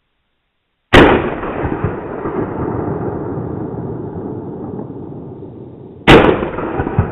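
Two shots from a Ruger Red Label 12-gauge over-and-under shotgun, about five seconds apart. Each is a sharp blast followed by a long noisy tail that slowly fades.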